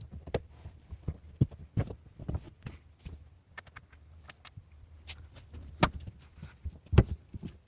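Plastic trim clips being pressed into the Lada Vesta's rear parcel shelf, with the shelf handled: a series of irregular small clicks and knocks, the two sharpest knocks near the end.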